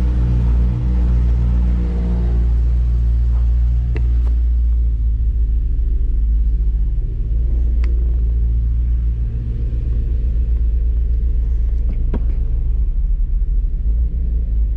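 BMW E92 M3's V8 engine and exhaust running with the exhaust valves open, a steady low rumble. About two seconds in the higher engine tones fade and it settles into a lower, even drone, with a few faint clicks.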